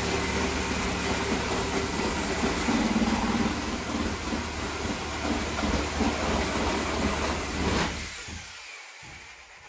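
Corded reciprocating saw running and cutting through a plywood wall, a steady loud buzz of the blade that stops near the end.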